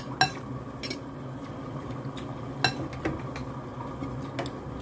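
A metal fork clinking and scraping against a glass bowl of noodles while eating: about nine scattered sharp clinks, the loudest just after the start and about two and a half seconds in. A steady low hum runs underneath.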